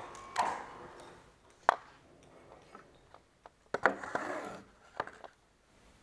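Knocks and scraping of a ROTAN gear pump being turned over and handled on a workbench, metal against metal and against the bench. There are a few sharp knocks, the loudest about two and four seconds in.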